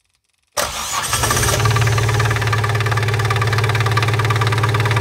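Ligier X-Too microcar's Lombardini two-cylinder diesel engine starting about half a second in, catching at once and settling into a steady, even idle. This is the first start after a timing belt change: it runs cleanly, a sign that the valve timing is right.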